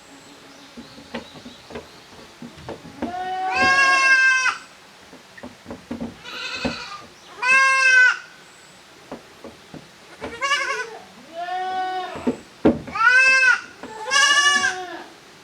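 Young goat kids bleating, about seven short high calls one after another, several of them rising and then falling in pitch.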